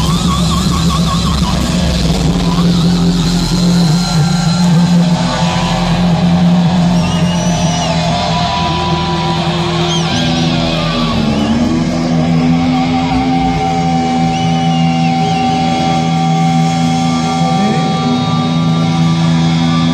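Live thrash metal band playing loud, distorted electric guitars and bass, holding long sustained notes with slides and pitch bends.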